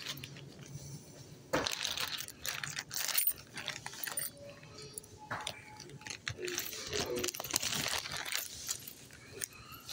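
Irregular rustling and clattering of small objects being handled, with sharp clicks and jingles, starting about a second and a half in.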